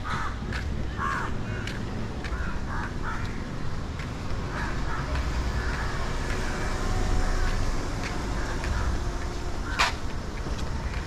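Crows cawing, several short harsh calls in the first few seconds and a few more a little later, over a low steady street rumble. A single sharp click sounds near the end.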